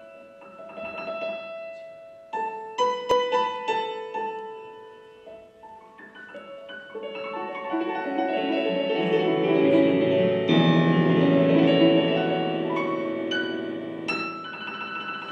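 Piano playing a song's introduction: separate notes and runs at first, swelling into loud full chords about halfway through, then easing a little near the end.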